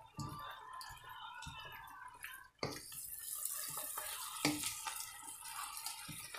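Vegetables stir-frying in a wok, sizzling, with a spatula scraping and knocking against the pan. About two and a half seconds in, the sizzle jumps louder and stays loud.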